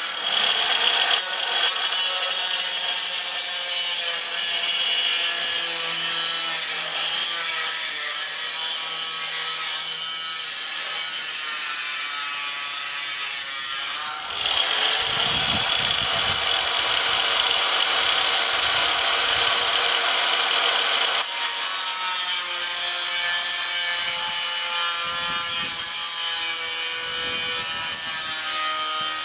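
Angle grinder with a cut-off wheel cutting through a corrugated metal roofing sheet: a loud, steady high whine over a harsh grinding hiss. The sound dips briefly about halfway through, then changes character for several seconds before the steady cutting whine returns.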